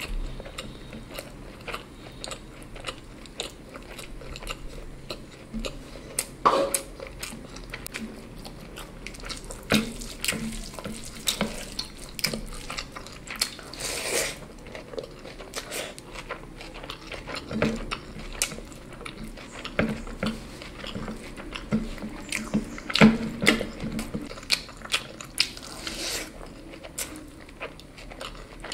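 Close-miked eating: a person chewing and biting into food, an irregular run of sharp clicks throughout.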